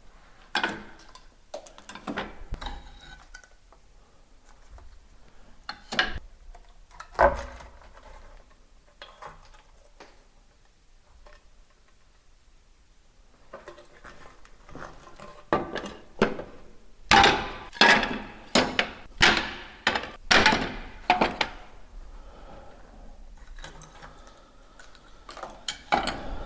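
Ceramic wall tiles being struck and knocked loose: scattered sharp knocks and clinks, then a fast run of about a dozen loud strikes, roughly two a second, past the middle. The tiles were stuck on with mastic over paint and come away easily.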